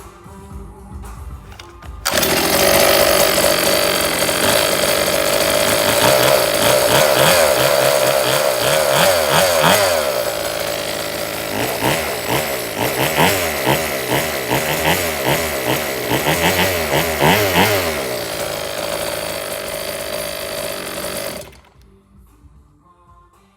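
Small 26cc two-stroke engine of a 1/5-scale RC car running loud about two seconds in, after its high-compression rebuild without a head gasket. It is revved up and down again and again, then cuts off suddenly a couple of seconds before the end.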